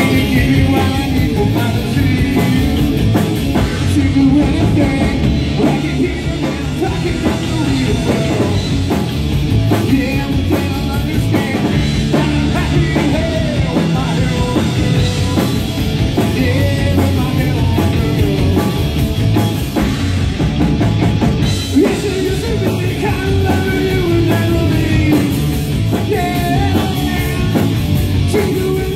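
Live rock band playing loud, with a drum kit and singing over a dense band sound.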